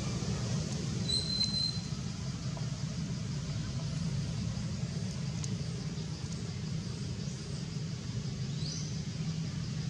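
Steady low outdoor background rumble, with two faint high chirps: one about a second in, a short rising one near the end.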